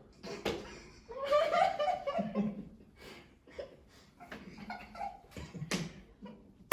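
Young men laughing and giggling in short, stifled bursts, loudest between about one and three seconds in.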